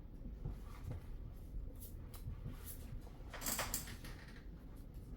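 Faint handling noises of a parcel being opened: scattered light knocks and rustles, with a short louder crinkle of packaging about three and a half seconds in.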